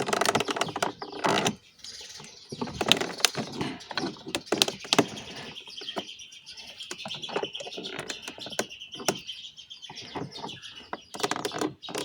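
Plastic door panel trim being pried and worked loose by hand, with a run of clicks, creaks and scraping that is densest in the first second or so. A high chirping sound runs through the second half.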